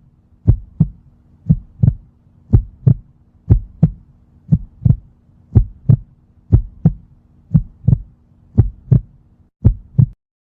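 Human heartbeat: a steady lub-dub, two short thumps in each beat, about one beat a second, over a faint steady hum. It cuts off abruptly near the end.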